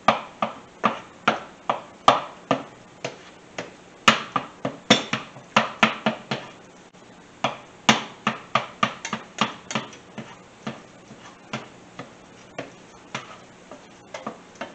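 A utensil tapping and scraping in a nonstick skillet as ground pork is stirred and broken up while it browns: a quick, uneven run of taps, two or three a second, growing softer in the second half.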